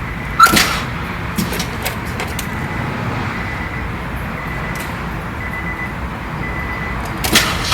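Steady low rumble like a running vehicle, with a loud sharp knock about half a second in and another near the end.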